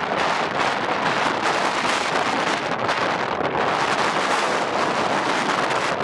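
Strong blizzard wind blowing over the microphone: a loud, steady rushing noise that swells and eases a little with the gusts.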